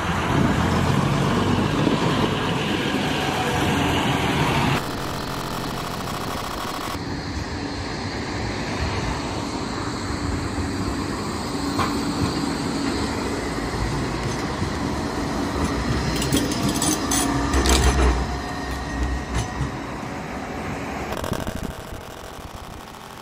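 A heritage double-decker bus driving past close with its diesel engine running, then, after cuts, a Flexity 2 tram rolling past close with a steady rumble that swells near the middle.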